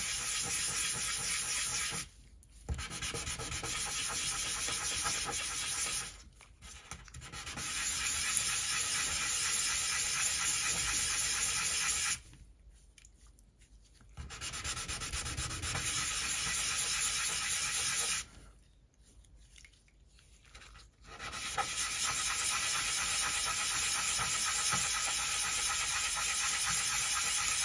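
Wet sanding by hand: a small model lifeboat rubbed in circles on a wet 800-grit sanding disc, a steady gritty rubbing in five bouts separated by short pauses. The sanding is levelling the lifeboat's canvas cover.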